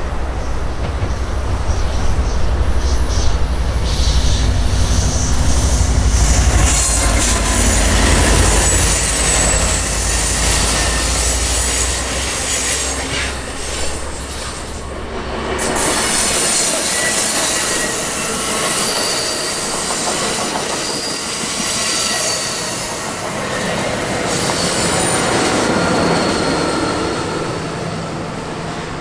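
Two Amtrak passenger trains passing each other on adjacent tracks, with the loud, steady rumble of wheels on rail and thin, high wheel squeal. A heavy low rumble fills the first twelve seconds or so, and the sound eases a little near the end.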